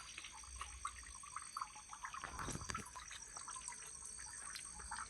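Faint trickling and dripping of water, with small scattered drips, running off a freshly washed tractor tyre.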